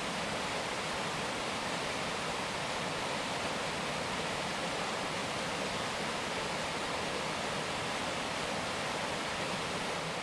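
Mountain creek rushing steadily over rocks and small rapids.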